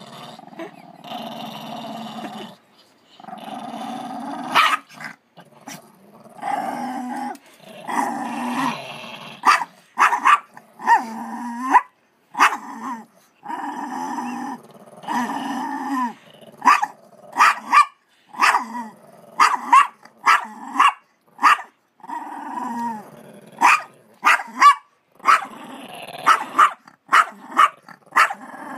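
Chihuahua growling in long low rumbles, broken by short sharp barks that come about once a second through the second half: a dog guarding a treat.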